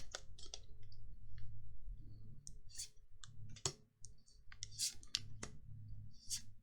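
Magic: The Gathering trading cards being flipped through and handled: quiet, irregular light clicks and snaps of card stock, about a dozen, a few sharper ones in the second half.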